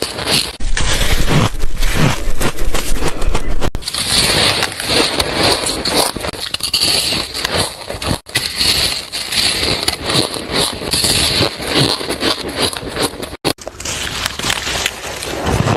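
Freezer frost crunching and crackling as it is bitten, chewed and squeezed in the hands: a dense, loud run of small crisp crunches. It breaks off abruptly three times.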